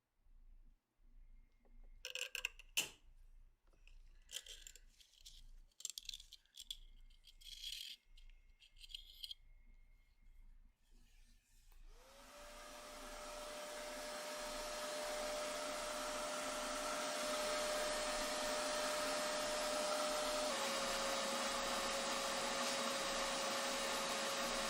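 Small metal parts clicking and rattling as they are handled, then an electric power tool spins up about twelve seconds in and runs steadily with a humming whine, dipping slightly in pitch later on.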